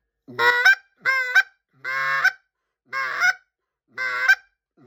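Get'em Down goose call blown in a series of five honks, about one a second, each note breaking with a quick flip in pitch near its end: the goose honk.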